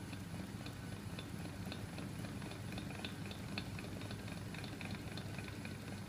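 Homemade flywheel machine running, driven by a small 12 V electric motor through its gears and crank linkage: a steady low hum with quick, uneven ticking from the moving parts.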